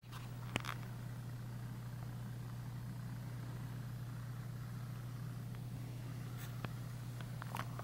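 Steady low hum in the room, with a few faint short clicks, one near the start and a couple close together near the end.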